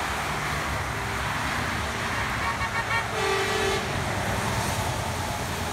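Highway traffic passing below, tyres hissing on wet pavement. A vehicle horn toots briefly about two and a half seconds in, then sounds one short steady note just after three seconds.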